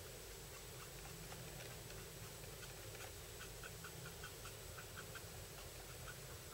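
Faint short strokes of a Copic alcohol marker's nib flicking across paper, sparse at first and then a quick run of about four a second from around three seconds in.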